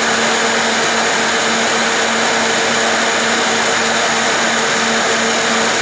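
TIPTOP TP-T650W cold spark machine jetting at its second jet-height setting with no powder loaded: a steady, loud rushing of air with a low hum and a faint high whine.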